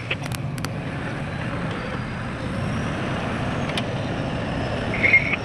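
Heavy earth-moving machinery running with a steady low rumble. A few sharp clicks come in the first second, and a short high squeak, the loudest sound, comes near the end.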